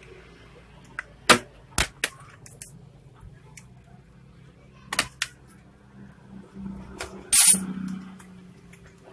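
Sharp plastic and metal clicks and knocks of a laptop's case and parts being handled and worked on with small tools, about a dozen irregular clicks, with a louder short scraping snap about seven seconds in.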